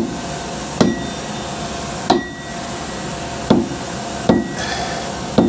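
A hammer tapping a metal flange clamped in a lathe's four-jaw chuck, six sharp strikes at uneven intervals over a steady machine-shop hum. Each tap nudges the part in the jaws to bring its runout on the dial indicator into tolerance.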